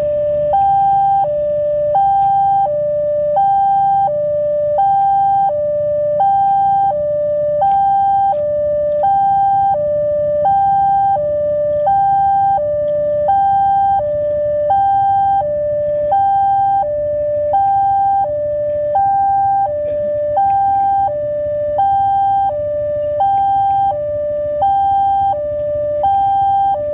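Railway level-crossing warning alarm sounding continuously: two electronic tones, one high and one lower, alternating at an even rhythm about every two-thirds of a second, signalling that a train is approaching and the barriers are down.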